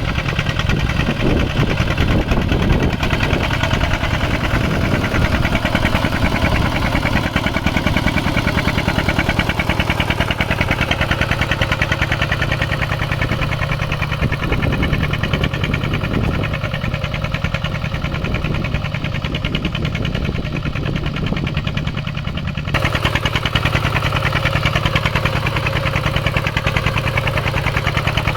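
Mini farm tractor's engine running steadily with a fast, even knocking beat while plowing a field. The tone shifts abruptly about 23 seconds in.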